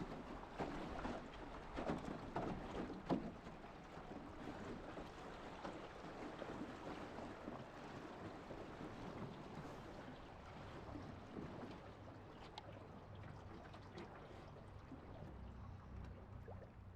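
Water lapping and splashing against a small boat on a river, with a few light knocks and splashes in the first few seconds.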